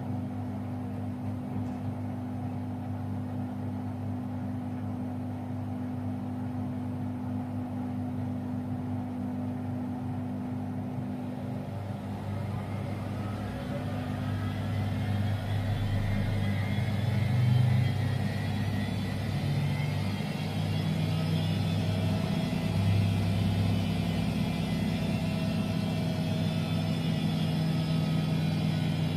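Miele washing machine running with a steady low hum, then its drum speeds up from a little under halfway through: a whine rises slowly in pitch and the machine gets louder as it winds up toward a spin.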